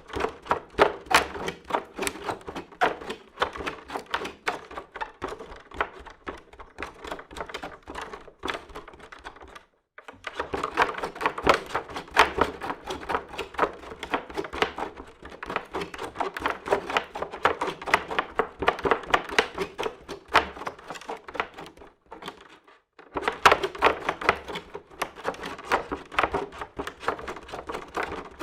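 Barefoot feet running on a creaky wooden floor: quick, rapid footfalls thudding on the boards. They come in three runs, with short pauses about ten seconds in and again after about twenty-two seconds.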